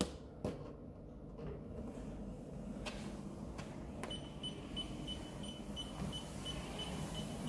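Technogym treadmill starting up from its Quick Start button: a couple of clicks, then the motor and belt running with a low rumble that slowly grows louder. About four seconds in, a high pulsing whine from the drive motor comes in.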